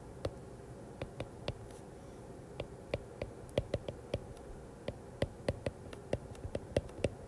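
Stylus tip tapping on a tablet's glass screen during handwriting: about twenty irregular sharp taps, some in quick runs, over a faint steady room hum.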